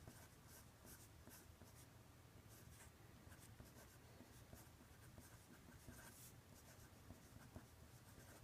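Faint scratching of handwriting: short, irregular strokes, over a low steady hum.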